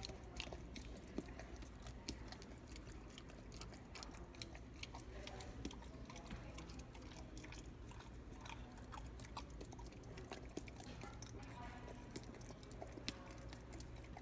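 Boxer dog smacking its lips and licking with peanut butter in its mouth: a faint, irregular run of sticky wet clicks.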